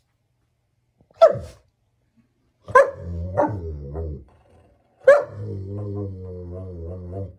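German shepherd barking at its own reflection in a mirror, which it takes for another dog: four sharp barks, the later ones each trailing into a low drawn-out growl, the longest after the last bark.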